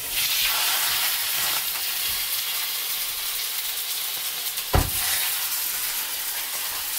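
Pork hocks searing in hot rapeseed oil in a roasting pot: a steady sizzle starting as the meat goes in, with one knock about five seconds in as another piece is set down in the pot.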